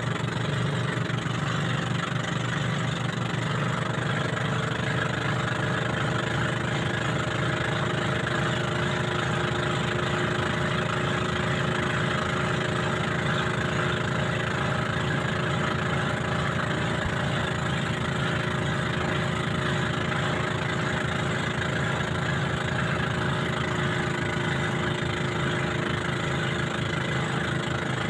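Engine of a motorised wooden bangka boat running steadily under way, an even, unchanging drone.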